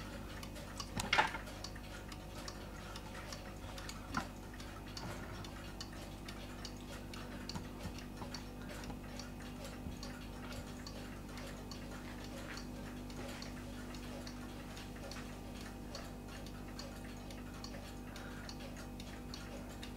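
Vintage Paico owl automaton clock's weight-driven pendulum movement ticking steadily in good beat, a faint even tick-tock. Two louder knocks come about one and four seconds in, over a faint steady hum.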